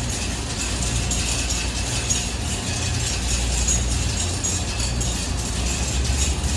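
Wascomat Senior W125 35-pound commercial washing machine running mid-cycle: a steady low hum with light rattling and ticking over it.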